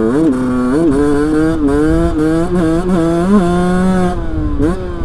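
Rieju motorcycle engine revving in a string of short throttle blips, its pitch swooping up and back down about twice a second, then settling to a steadier lower note with a couple more blips near the end; the engine revs freely.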